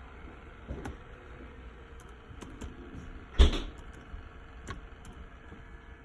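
Low steady background hum with a few light clicks and one loud thump about three and a half seconds in.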